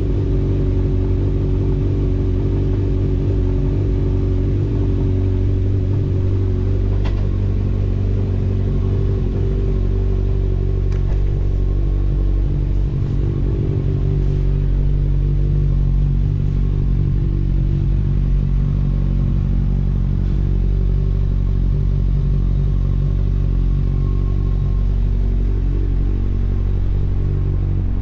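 Honda CB1000R's inline-four engine idling steadily, its pitch holding even, with a few faint ticks over the top.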